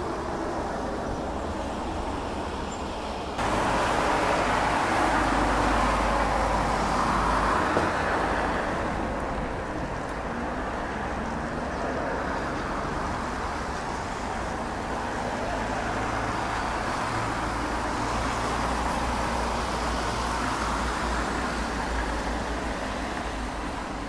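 Steady background hum of distant road traffic, no bird calls standing out. It jumps abruptly louder about three seconds in, then eases off somewhat.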